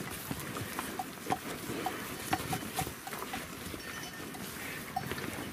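A herd of cattle grazing at close range: grass tearing and chewing, with irregular small ticks and crackles as the animals feed and shift.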